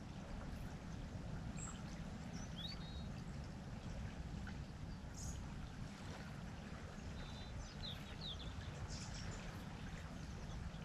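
Riverside ambience: a steady low rumble with a few short, high bird chirps scattered through it.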